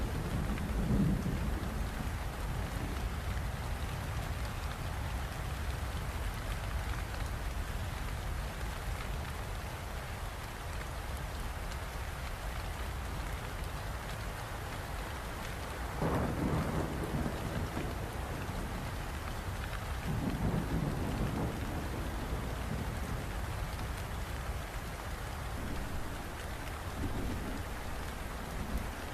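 Steady heavy rain falling, with low rolls of thunder swelling up several times: near the start, about halfway through and again toward the end.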